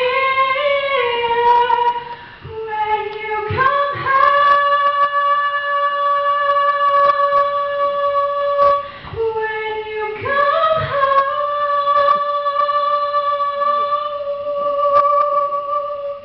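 A girl singing solo into a microphone, holding long sustained notes of several seconds each, with short lower notes and breaths between them. The last note ends just before the close.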